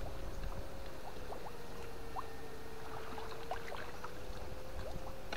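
Steady high hum of a FET electric fish-shocker, wavering slightly in pitch, with scattered small water splashes and ticks.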